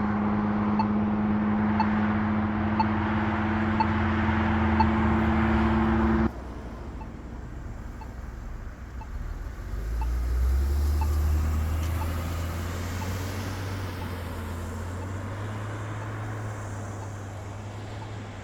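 Polara iNS accessible pedestrian push button's locator tone ticking about once a second while the crossing is on wait, over intersection traffic. A loud steady low vehicle hum cuts off suddenly about six seconds in, and about ten seconds in a vehicle's low rumble swells and fades.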